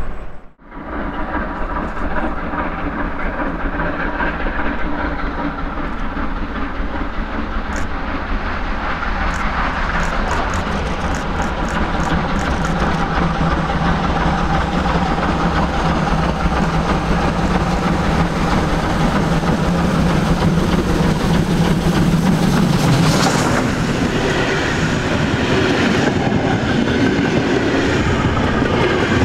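DR class 58 steam locomotive 58 311 approaching with its train and passing close about 23 s in, followed by the coaches rolling past with their wheels clicking over the rails.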